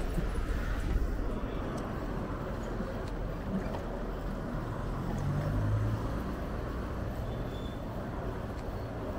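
Road traffic noise at a busy intersection and along the road beside it: a steady din of passing cars and buses, with a louder low engine sound from a passing vehicle about five seconds in.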